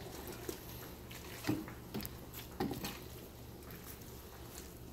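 A spoon stirring thick egusi soup in a pot, making a few soft wet squelches over a steady low hum.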